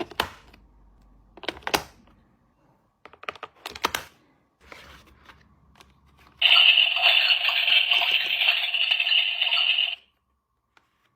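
Small plastic toy kitchen pieces clicking and tapping as they are handled, a few sharp clicks in quick clusters. Then a loud, steady hiss starts about six seconds in, runs for about three and a half seconds and cuts off sharply.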